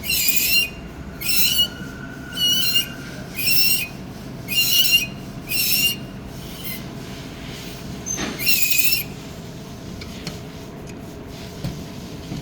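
Kia's rear brakes squealing in short, high-pitched bursts, about one a second for six squeals, then one more after a pause of about two seconds.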